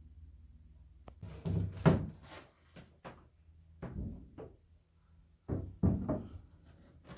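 Hatch cover being set into its opening in the cabin sole: three clusters of knocks and thunks, with a single click near the end.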